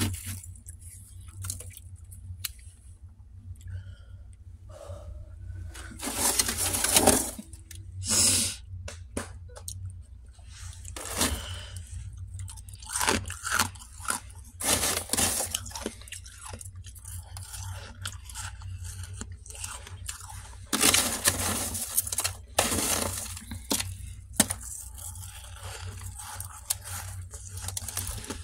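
Freezer frost being crunched and chewed, with scraping of frost by hand, in irregular crunchy bursts. The loudest come about six seconds in and again about twenty-one seconds in, over a steady low hum.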